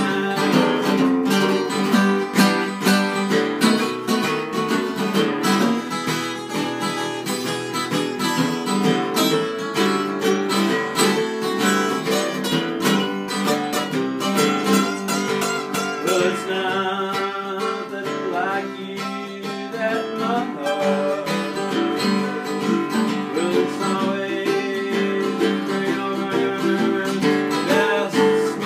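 Two acoustic guitars playing a song together, with a man singing at times.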